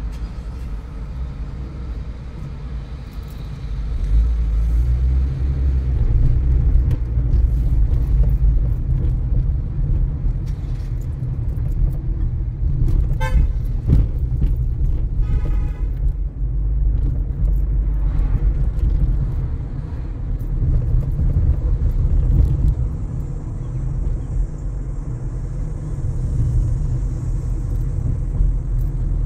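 Car road noise, a steady low rumble from engine and tyres on a wet road, growing louder about 4 seconds in. A car horn toots twice in short bursts near the middle.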